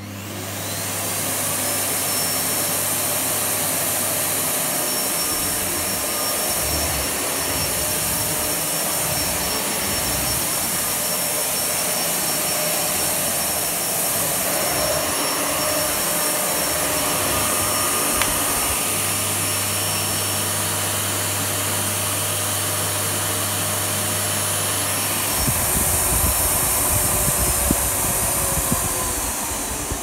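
Miele S7210 upright vacuum cleaner soft-starting, its motor rising to full power over a second or two, then running steadily on max with a high motor whine. Near the end the whine falls in pitch and the level drops as the power dial is turned down.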